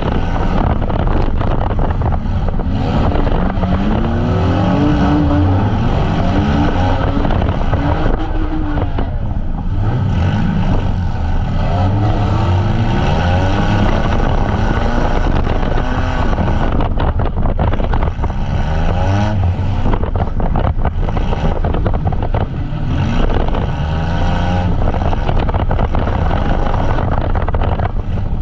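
Engines of several demolition derby vans running at once, revving up and down with overlapping pitches that rise and fall, and frequent knocks and bangs.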